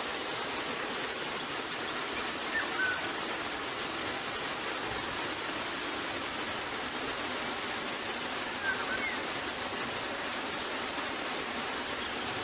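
Steady rushing noise, with two faint short chirps, about three and nine seconds in.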